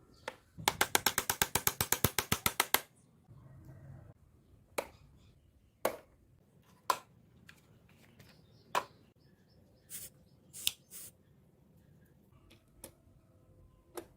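A fast, even run of about twenty sharp mechanical clicks, roughly ten a second, lasting about two seconds like a ratchet, followed by single clicks and taps about a second apart.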